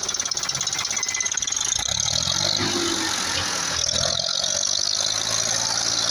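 Tractor engine running under load while pulling a heavily loaded trailer, with a rhythmic knocking beat. The engine note rises about two seconds in, then holds steady.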